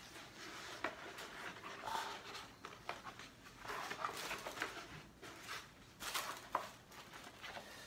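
Faint rustling of a rolled print and its plastic tube being handled and uncurled, with a few light clicks and knocks.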